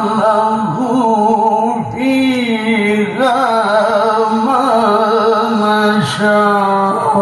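Male Qur'an reciter (qari) chanting in melodic tilawah style, holding long ornamented notes with wavering melismatic turns, breaking only briefly twice.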